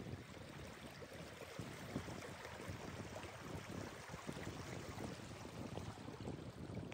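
Shallow stream water flowing steadily around and between stone stepping stones.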